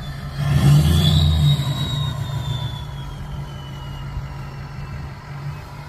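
Diesel pickup truck engine running under load off-road, surging louder for about a second near the start, then settling to a steady drone. A thin high whistle slowly falls in pitch over the first few seconds.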